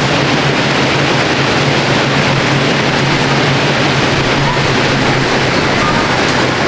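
Fan-type air bikes spinning fast under hard pedalling: a steady whooshing rush of air with a constant low hum beneath it.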